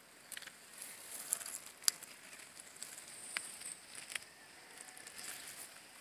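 Footsteps crunching through dry cut-grass and straw mulch: a faint irregular crackling with a few sharp snaps.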